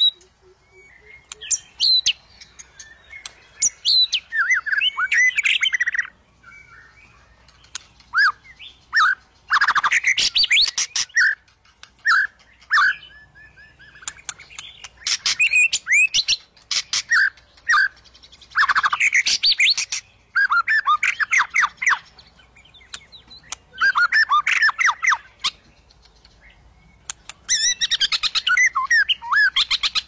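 White-rumped shama (murai batu) singing: repeated phrases of rapid, varied whistles and chattering notes, each a second or two long, with short pauses between.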